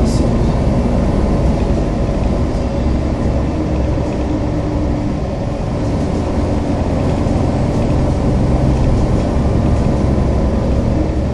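City bus driving, heard from inside the cabin: a steady engine drone with road noise.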